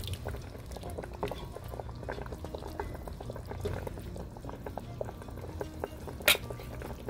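Mutton broth boiling in a pot, bubbling with many small irregular pops as a wooden spoon stirs through it, over soft background music. One sharp knock about six seconds in.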